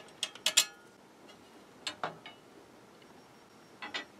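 Sharp metal clicks and clinks as a screwdriver works on the metal card-guide rails of an electronic instrument's card cage and a rail is lifted off. The loudest pair comes about half a second in, then scattered single clicks around two seconds and near the end.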